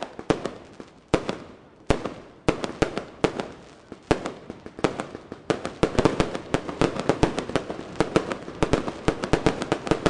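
Fireworks display: aerial shells going off in sharp bangs, a few spaced apart at first, then a dense rapid string of reports from about halfway through.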